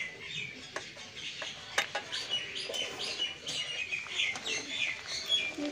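Small birds chirping over and over, with a few light clicks of a metal spatula against a wok.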